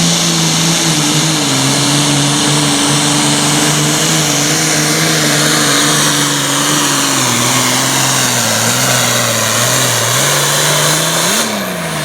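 Super Farm pulling tractor's diesel engine running flat out under load, its pitch sinking slowly as the sled bogs it down. About eleven and a half seconds in, the engine note breaks and the engine lets off as the pull ends.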